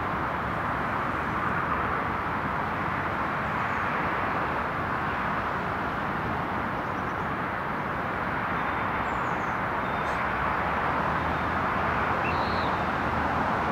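Steady rumble of a train approaching slowly along the tracks, growing a little louder near the end, with a few faint bird chirps.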